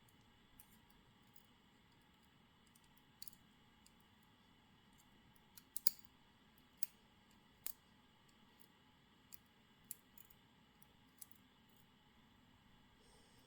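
Small sharp clicks and taps at irregular intervals as the pins and springs are worked out of a Goal P lock cylinder during disassembly, with the loudest cluster about six seconds in.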